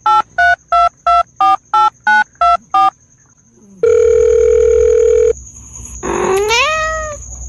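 Telephone keypad tones: a quick string of about ten short two-note beeps, then a steady tone lasting about a second and a half. About six seconds in, a cat gives one meow that rises in pitch.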